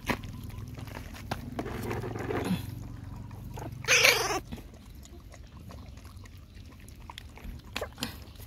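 Puppies lapping milk from a bowl, a run of small wet clicks, with a puppy's whimper about two seconds in and a louder, high puppy cry about four seconds in.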